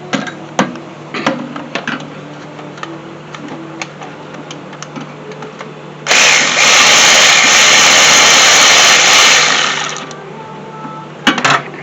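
A power tool with a 12 mm socket runs steadily for about four seconds, starting about six seconds in, backing out the last mounting bolt of an AC compressor. Light clicks and knocks of the socket and tool on metal come before it, and a few sharp clicks near the end.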